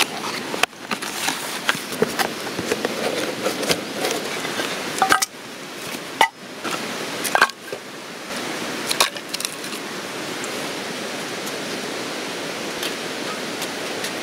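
Sharp clicks and knocks as the parts of a homemade table are handled and fitted together, then wooden knocks as split firewood pieces are set down. From about nine seconds in, a steady rush of running water takes over.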